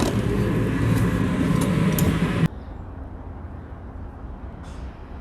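Downtown street noise of passing traffic, a steady rumble that cuts off abruptly about two and a half seconds in to a much quieter low rumble.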